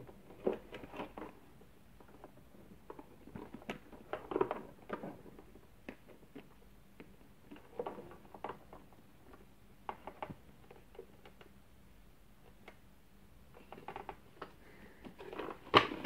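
Scattered clicking, tapping and rustling of the plastic motor housing and wiring of a Dyson DC37 vacuum cleaner being handled and fitted together by hand, with a louder knock near the end.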